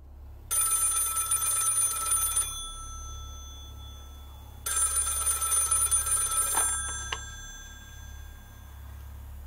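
Old rotary desk telephone's bell ringing twice, each ring about two seconds long with a pause of about two seconds between. Two sharp clicks follow just as the second ring dies away.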